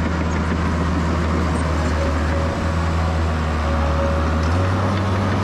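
Diesel engine of a Case 850K crawler dozer running steadily close by. Its note steps up slightly about four and a half seconds in.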